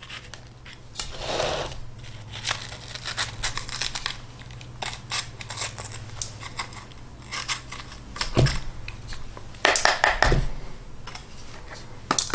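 A small kitchen knife cutting and scraping the core, ribs and seeds out of a yellow bell pepper half: a run of crisp, irregular clicks and crunches as the pepper flesh is cut, with two dull knocks in the second half.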